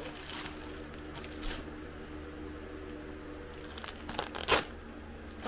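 Plastic marshmallow bag crinkling and being torn open, with the loudest rustles about four seconds in, over a steady hum from a room fan.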